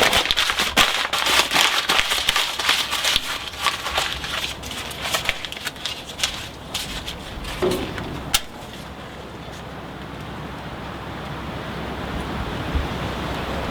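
Coal forge firepot being cleaned out: a rapid clatter of scraping and knocking as old clinkers are raked out, for about the first eight seconds, ending on a sharp knock. After that a steady rushing noise takes over and slowly grows louder.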